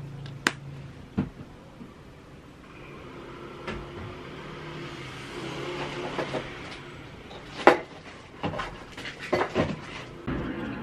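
Kitchen handling sounds: scattered light clicks and knocks of tableware, the loudest a sharp knock about three-quarters through. A low steady hum stops about a second in.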